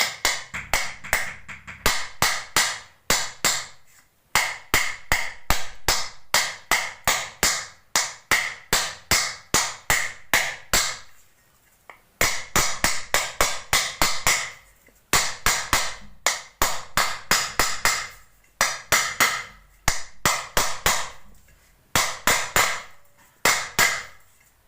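Rapid sharp tapping, about four or five taps a second in bursts with short pauses, as a new bearing is knocked down into a ceiling fan's motor housing until it is fully seated.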